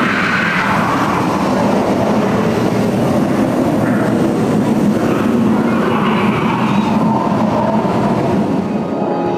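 Loud, steady rumbling roar of a dark ride's volcano and earthquake sound effects, swelling and easing over several seconds.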